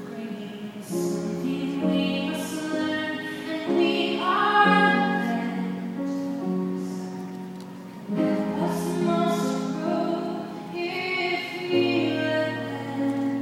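A woman's voice singing a ballad in long held notes over instrumental accompaniment.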